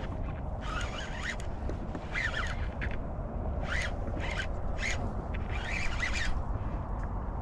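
Fishing reel being cranked in repeated short bursts while a hooked fish is fought in. Steady wind rumble on the microphone runs underneath.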